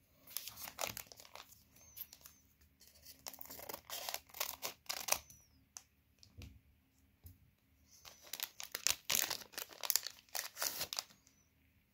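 Plastic trading card pack wrappers crinkling and tearing as the packs are handled and opened, in two spells: one from the start to about five seconds in, another from about eight to eleven seconds in.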